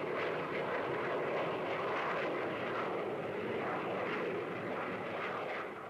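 Jet aircraft in flight: a steady rushing engine noise that eases slightly near the end.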